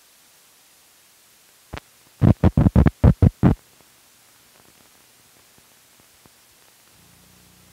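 Noise on an old film's soundtrack during the countdown leader: a single click, then a quick run of about eight loud thumps, roughly six a second. A faint low hum comes in near the end.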